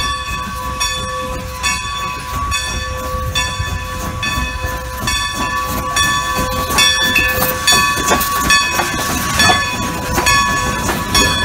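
Great Western Railway No. 90, a 2-10-0 steam locomotive, moving slowly past with its bell ringing in an even rhythm of about two strikes a second over the rumble of the engine and train. It grows louder in the second half as the engine comes close.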